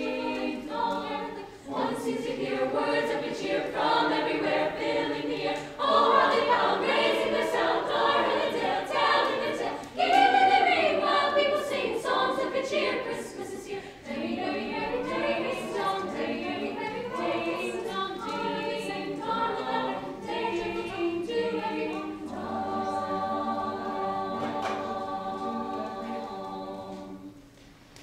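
Mixed-voice high-school choir singing a cappella, with no accompaniment. The singing swells louder about six and ten seconds in, and near the end the choir holds one long chord that dies away.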